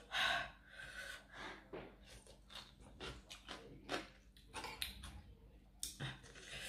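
Close-up eating sounds: irregular chewing, smacking and small mouth clicks from someone eating spicy cucumber salad with octopus, with a brief louder noise right at the start.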